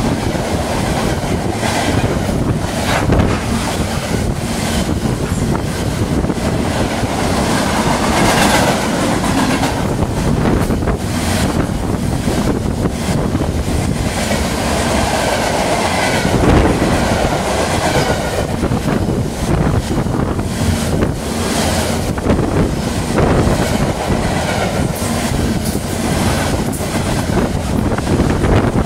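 Freight train of covered hopper cars passing close by at speed: continuous wheel-on-rail noise with repeated rail-joint clicks as the cars roll past.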